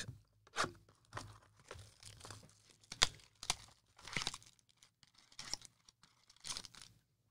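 Clear plastic shrink wrap being torn and crinkled off a sealed trading card box, in short, irregular rips and crackles, with one sharper snap about three seconds in.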